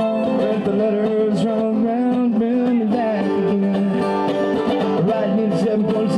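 Live bluegrass played on mandolin and strummed acoustic guitar, with a man singing long held notes over it.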